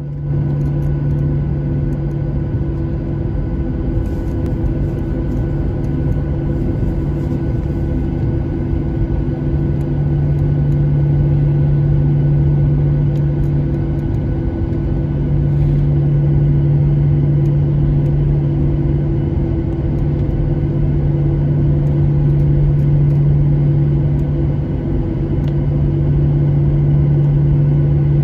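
Boeing 737-800 cabin noise while taxiing: the CFM56-7B turbofan engines at low power give a steady drone with a low hum and a few fixed tones, swelling slightly a couple of times.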